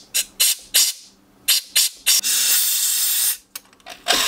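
Compressed-air blow gun blasting metal chips out of a freshly drilled bolt hole in the cylinder head: a string of short puffs, then a longer hiss of about a second, and another blast starting near the end.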